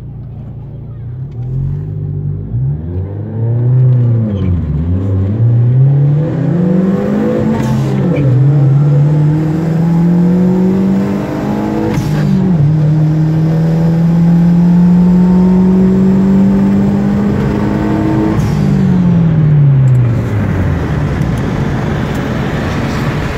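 A car's engine heard from inside the cabin on a drag-strip run: the revs rise and fall a few times at the line, then it accelerates hard, the pitch climbing with two upshifts about eight and twelve seconds in. It holds at high revs, then winds down as the car lifts off and slows near the end.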